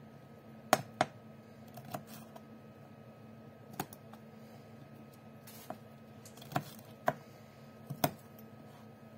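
Kitchen knife knocking against a plastic cutting board while slicing green chillies: sharp irregular clicks, about nine of them, some in quick pairs, over a faint steady hum.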